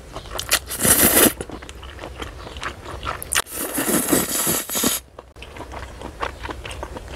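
A person eating cold bibim noodles with chewy conch meat: noodles slurped in with a hissing rush about a second in, then again for a longer stretch from about three and a half to five seconds, with wet chewing and small crunchy clicks between.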